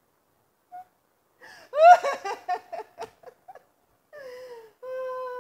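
A person's wordless vocalizing: a loud rising whoop about two seconds in, then short choppy laughter, then a long held cry that falls in pitch at the end.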